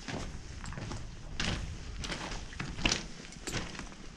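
Footsteps crunching on a gravel-and-rubble floor inside a disused railway tunnel, several uneven steps.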